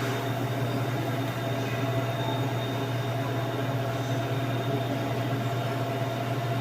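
TIG (GTAW) welding arc burning steadily on pipe: a constant low hum with an even hiss over it.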